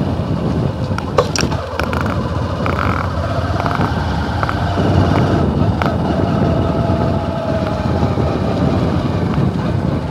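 Engine of a moving vehicle running steadily, with a dense low rumble and a few short clicks.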